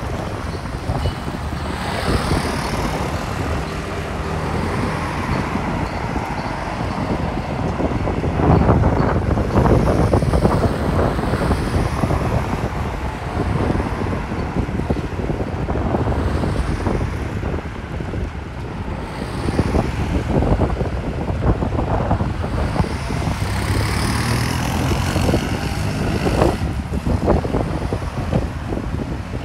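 Road traffic: cars driving past one after another, each swelling and fading, with wind buffeting the microphone.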